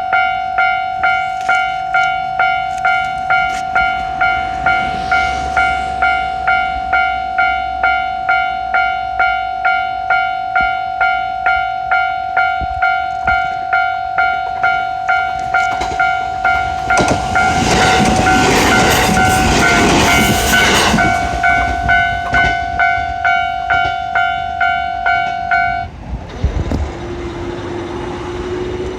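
Japanese railroad crossing warning bell ringing its steady 'kan-kan', about one and a half strikes a second. A train passes through the crossing past the middle, loudest for several seconds, and the bell stops a few seconds before the end, leaving a low steady hum that rises slightly.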